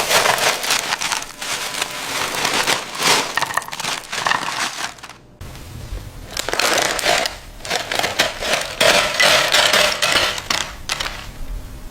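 Dense crackling and crinkling of potato chips being crunched and handled, in two loud stretches split by a sudden cut about five seconds in, with a low hum underneath after the cut.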